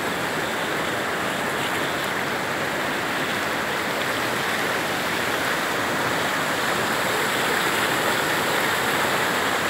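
Fast-flowing floodwater rushing down a street: a steady, even rush of water.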